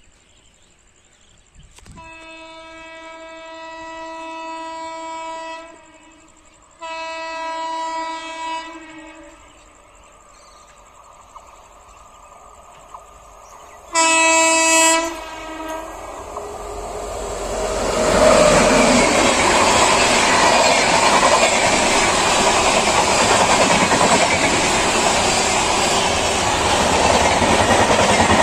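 Indian Railways electric locomotive's horn blown three times as an express approaches: two long blasts, then a shorter, much louder one. The train then passes at speed, a loud steady rush with its LHB coaches' wheels clattering over the rail joints.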